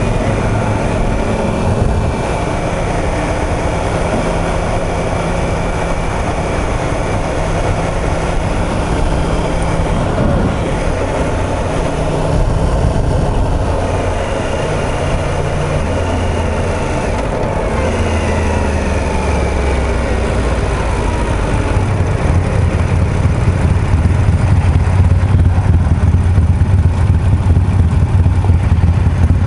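Motorcycle ride: engine and road noise, with the engine note falling around the middle as the bike slows. In the last several seconds, with the bikes stopped, a cruiser's throbbing exhaust idles alongside, low and growing louder.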